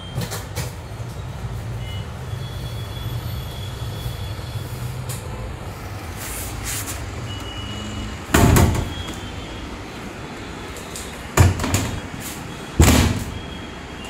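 Steady low hum of running factory machinery, broken by loud knocks and clatters of a steel electrical control-panel cabinet door being swung and shut: one about eight seconds in, then two close together near the end.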